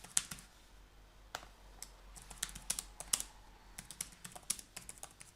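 Typing on a computer keyboard: scattered keystrokes at first, then a quicker irregular run of keys in the second half.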